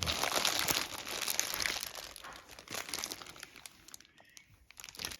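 Gift wrapping crinkling and rustling as it is handled. Dense for about the first two seconds, then thinning to a few scattered crackles.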